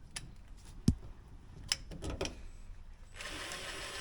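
Knocks and clicks from handling tools and parts, the sharpest about a second in, then a steady whirring of a small power tool's motor starting about three seconds in.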